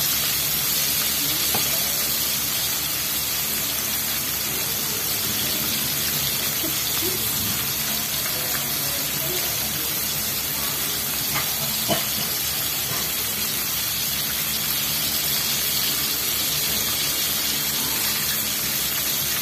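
Chicken pieces deep-frying in a wok of hot oil, a steady sizzle that does not change, partway through a long fry. One light click about twelve seconds in.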